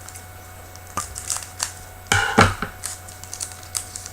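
Trading-card pack wrappers crinkling and cards being handled, with scattered short flicks and clicks and a louder rustle about two seconds in.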